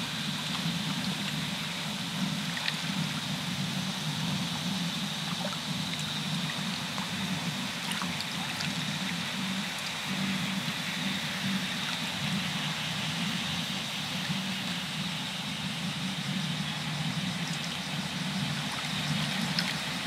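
Steady ambience of shallow water lapping and trickling, with a low steady hum underneath and a few faint scattered clicks.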